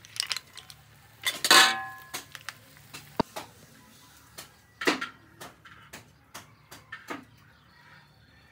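Cooked clam shells and a spatula clinking against a ceramic plate as the clams are served onto it. A few sharp separate clinks, the loudest about one and a half seconds in with a short ring.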